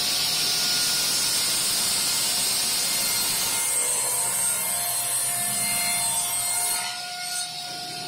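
Delta Unisaw cabinet table saw ripping a board along the fence: a steady rushing cut over the saw's running whine. About seven seconds in, the board clears the blade and the saw runs on quieter, spinning free.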